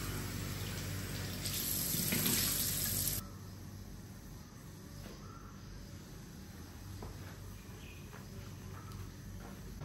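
Water running from a tap into a sink, getting louder about a second and a half in, then cut off abruptly after about three seconds. After that, quiet room background with a few faint light knocks.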